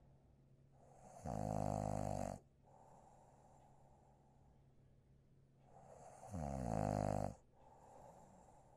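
A person snoring in sleep: two loud snores about five seconds apart, each rising out of a softer breath.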